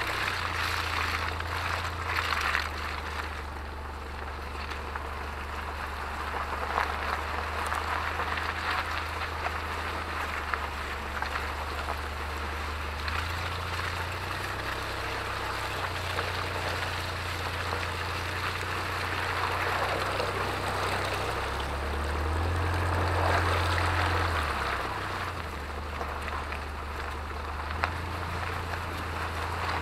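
Off-road tyres of a Mitsubishi Pajero rolling slowly over wet mud and gravel: a steady wet, gritty noise from the wheel over a low vehicle rumble. The noise swells briefly about two-thirds of the way through.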